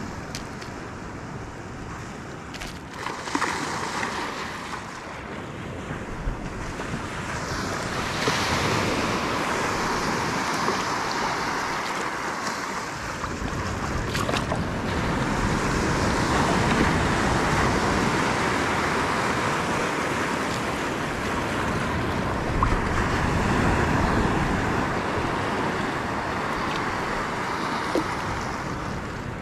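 Wind buffeting the microphone over the steady wash of shallow sea water, growing louder after the first several seconds.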